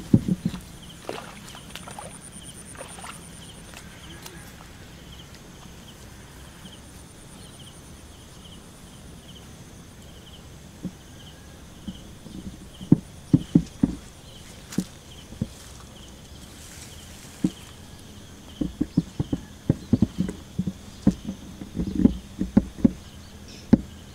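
Footsteps squelching through wet grass and mud, a scattered run of short low knocks that come thickest in the second half. Behind them a small, steady chirp repeats about twice a second.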